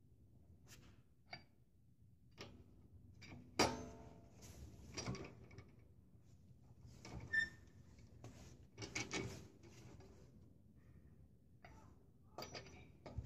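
A steel four-way cross wrench is being fitted onto a car wheel's lug nuts and turned during a tyre change. It gives scattered metallic clicks and clinks, the sharpest about three and a half seconds in. One brief ringing clink comes about seven seconds in.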